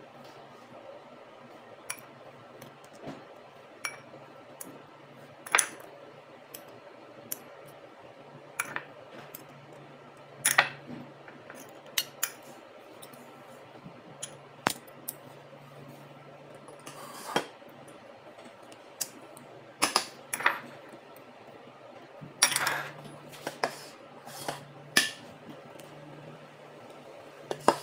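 A metal fork and spoon clinking and tapping against each other and on the muffin pan and bowl as chopped dates are spooned into paper cups. The clinks come at irregular intervals, over a faint steady hum.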